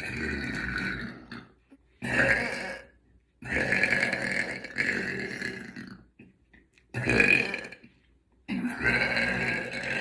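A woman burping loudly: a run of about five long belches with short silent breaks between them, the longest lasting over two seconds.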